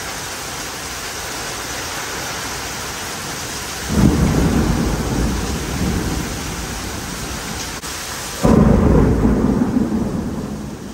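Heavy storm rain pouring steadily. About four seconds in, a loud low rumble of thunder sets in. A second, louder rumble breaks in about two-thirds of the way through and dies away near the end.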